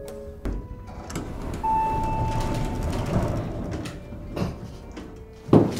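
Elevator car running with a steady rumble and the rattle of its sliding doors, a knock about half a second in, and a single chime tone held for about a second near the two-second mark.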